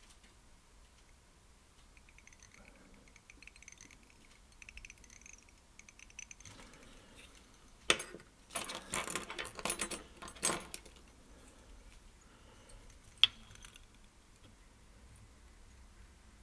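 Small metal fly-tying tools being handled: a jingling rattle of clicks for about three seconds, starting about halfway through, then one sharp click a few seconds later. Otherwise faint room tone.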